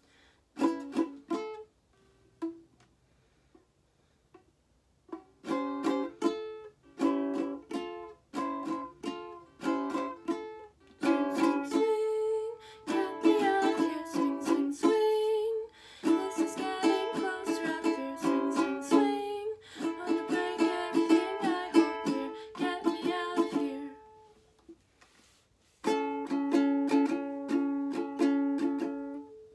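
Ukulele strummed in chords, in short stop-start bursts with a couple of brief pauses and a longer continuous run of strumming in the middle.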